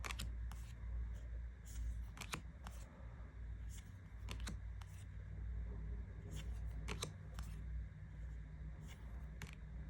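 Tarot cards being flipped through one at a time, giving scattered light clicks and slaps of card against card, over a low steady hum.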